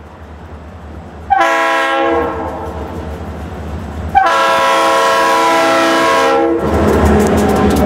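Diesel freight locomotive's multi-chime air horn sounding two long blasts for the grade crossing, the first starting about a second in and the second about four seconds in. As the horn stops near the end, the lead locomotive passes close by, its diesel engine humming and its wheels clicking over the rails.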